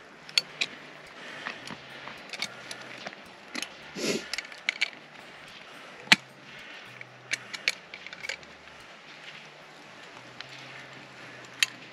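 Pliers gripping and working a steel tent peg loose from iced-over frozen ground: scattered sharp metallic clicks and crunching, the loudest a single sharp click about six seconds in.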